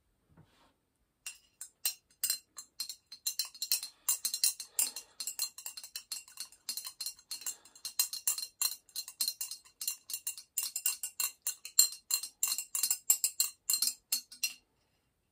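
A pestle working quickly in a mortar: a dense run of rapid clinking taps, with the bowl ringing at a high pitch. It starts about a second in and stops shortly before the end.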